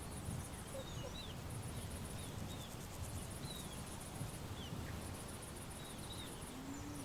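Outdoor background of small birds chirping in short calls several times, with a very high pulsed insect-like trill that comes and goes, over a steady low rumble.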